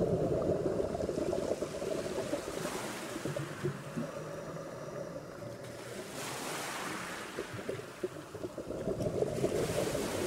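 Underwater sound on a reef: a steady crackling, bubbling rush of water, with a hiss that swells up and dies away about every three seconds.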